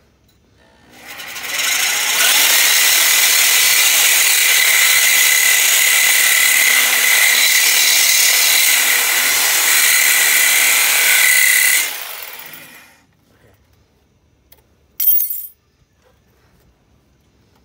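DeWalt reciprocating saw with a metal-cutting blade sawing through a steel exhaust pipe to cut off the muffler: a steady rasping cut with a high whine, running about eleven seconds before stopping. A brief sharp noise follows a couple of seconds later.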